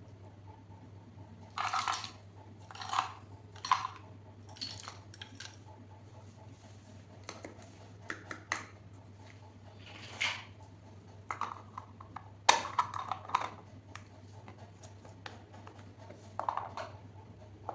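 Small plastic toy kitchen pieces being handled and set down: irregular light clicks, taps and brief rustles, about a dozen spread through, over a steady low hum.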